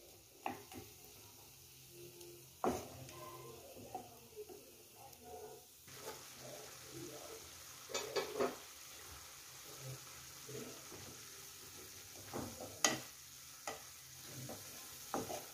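Grated beetroot sizzling and simmering in a pan with a little water, being softened, while a wooden spatula stirs it and knocks against the pan a few times. The hiss grows about six seconds in.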